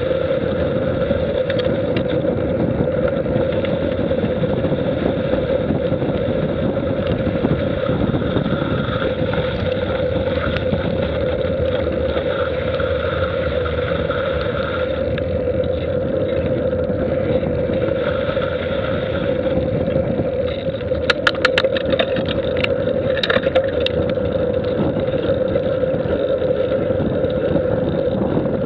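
Steady rushing wind and road noise on a moving camera's microphone, with a brief run of sharp clicks or rattles about three quarters of the way through.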